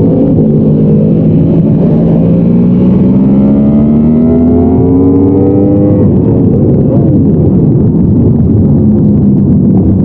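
Yamaha R1 inline-four engine heard through the bike's onboard camera, the note rising steadily for about six seconds under throttle. About six seconds in the note breaks up and falls, then settles into a steady tone again near the end.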